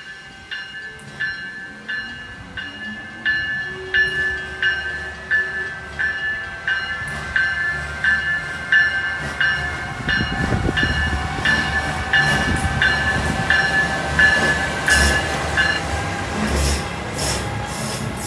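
Amtrak electric passenger train approaching and passing close by, with a bell dinging about one and a half times a second until it stops about sixteen seconds in. The rumble of the train swells as the locomotive reaches the listener about ten seconds in, with a steady whine under it as the cars go by.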